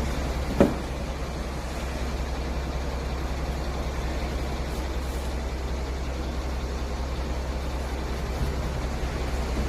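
Steady low mechanical hum at a truck, with one sharp knock about half a second in.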